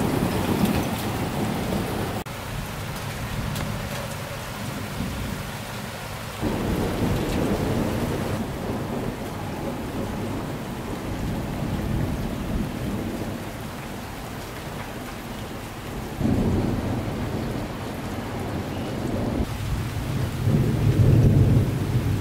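Thunderstorm: a steady hiss of rain with several low, rolling rumbles of thunder, the loudest near the end.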